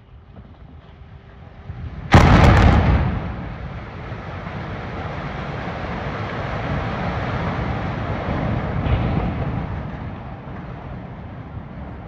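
Explosive demolition of a thermal power station's boiler unit and chimney: a sudden loud blast about two seconds in, followed by a long rumble of the structures collapsing, which swells again about nine seconds in and then fades.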